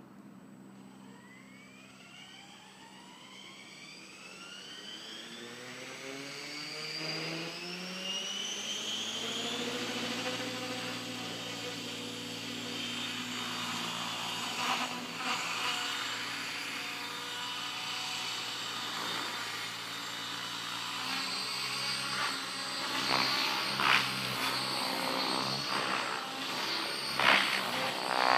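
Electric Thunder Tiger Raptor E700 RC helicopter spooling up: its motor and gear whine rise steadily in pitch over the first ten seconds or so, then hold steady at head speed. From about two-thirds of the way through, the rotor sound grows louder and uneven, with sharp swooshes as the helicopter flies.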